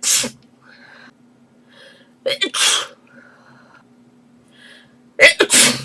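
A girl sneezing three times, about two and a half seconds apart, each sneeze with a quick sharp catch of breath just before it.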